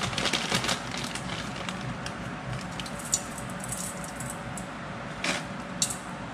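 Rock salt being sprinkled onto ground pork in a stainless-steel pot: a soft rattle of grains over a steady background hiss, with a few light clicks.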